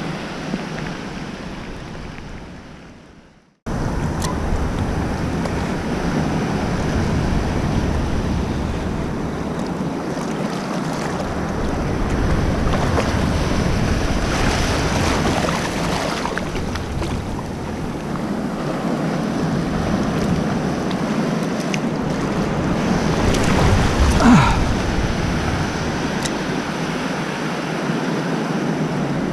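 Ocean water sloshing and surf breaking around a small board, with wind buffeting the microphone. The sound fades away to silence about three seconds in, then comes back abruptly at a steady level.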